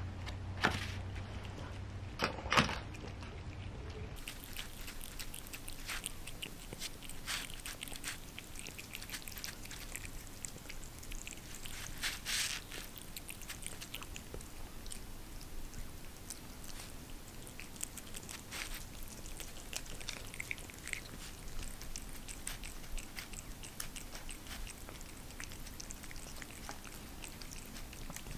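Cats chewing and licking firm canned lamb pâté off paper plates, heard as a string of soft, irregular wet clicks and smacks. A few sharper knocks come in the first three seconds.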